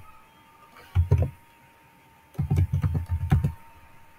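Typing on a computer keyboard in short runs of keystrokes: a brief run about a second in, then a longer flurry from about two and a half to three and a half seconds.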